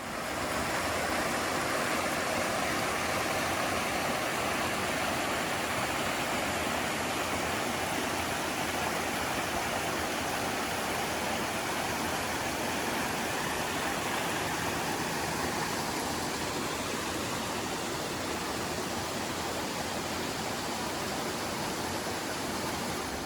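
Steady rushing of a stream: an even wash of running water with no breaks or changes.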